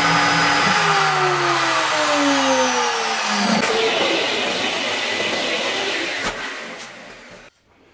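CNC router's spindle motor winding down after being switched off: its whine falls steadily in pitch for about three seconds. A hiss follows and fades away near the end.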